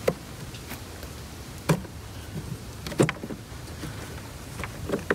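Four sharp clacks, irregularly spaced a second or more apart, over a steady faint hiss: hard tools and parts being handled in a van's engine bay.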